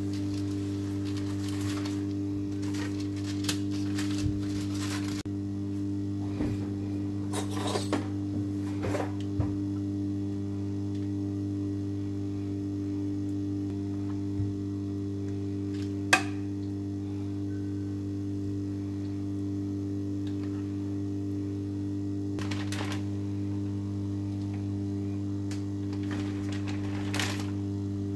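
Steady low electrical hum, with brief rustles and taps of baking paper and a metal baking tray being handled in the first ten seconds or so, and one sharp click about sixteen seconds in.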